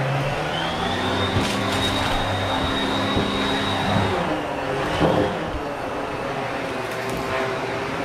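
Vacuum cleaner running, with a steady motor drone and a high whine that comes in about half a second in and fades out around four seconds.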